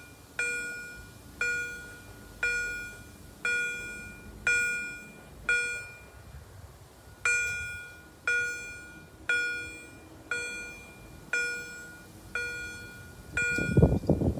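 Level-crossing acoustic signaller (Auer Signal electronic bell) ringing about once a second, each ding fading away, with one beat missing about six seconds in: the warning that the crossing is closing and the barriers are coming down. A short burst of low noise is heard near the end.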